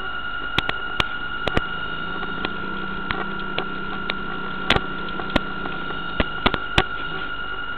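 Interference noise on the audio of the RC boat's onboard camera: a steady high electronic whine and hiss with scattered sharp clicks. A low hum runs from about two seconds in to about six.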